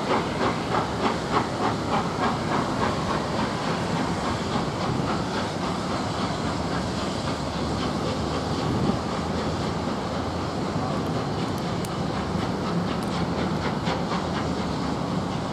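Steam-hauled train with A1 Pacific No.60163 Tornado at its head. Regular beats come about three a second for the first few seconds, then the sound settles into a steady rumble and hiss of the train running, with light clicks near the end.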